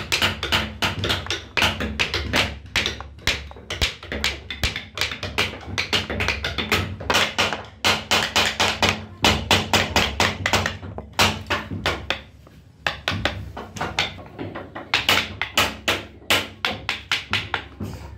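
Wooden mallet striking a hand carving chisel into wood: a quick run of sharp taps, several a second, with a short pause about twelve seconds in before the tapping picks up again.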